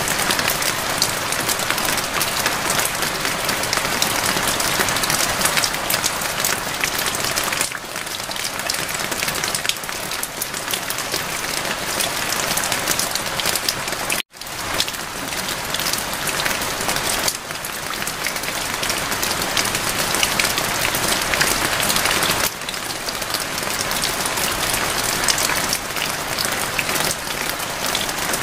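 Steady rain: a dense hiss of many small drop impacts, with its loudness stepping up and down slightly every few seconds and a momentary gap about fourteen seconds in.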